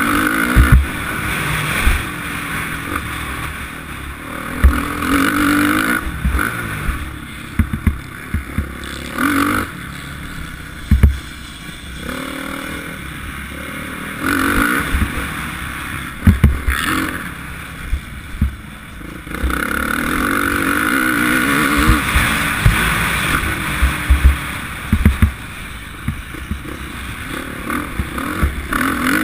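Suzuki RM-Z450's single-cylinder four-stroke engine revving up and easing off again and again as the rider accelerates and shuts off around the motocross track, heard from a helmet camera with wind rush over it. Sharp low thumps come through at irregular intervals as the bike hits bumps.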